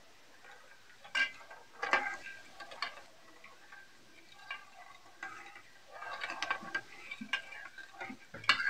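Metal spoon stirring a thin, liquid yeast starter in an enamel bowl: irregular scrapes and light clinks of the spoon against the bowl, louder about a second and two seconds in and again in a cluster near the end.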